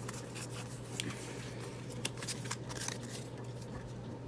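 Pokémon trading cards being handled and flipped through: a string of small, sharp clicks and light rustles over a steady low hum.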